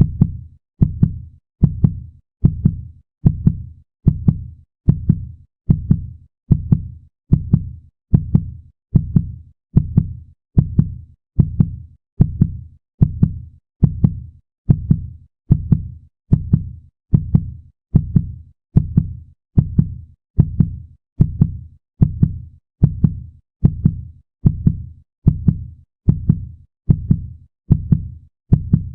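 Human heartbeat sound effect: a steady, even rhythm of low lub-dub double thumps, about one beat a second.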